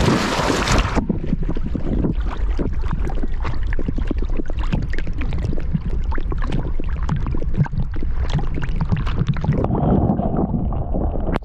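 Water splashing as a dog plunges into a river, heard from a camera strapped to its back, loud for the first second. Then steady sloshing and splashing as the dog swims, with water washing over the camera and a low rumble. About ten seconds in the sound turns muffled as the camera dips underwater.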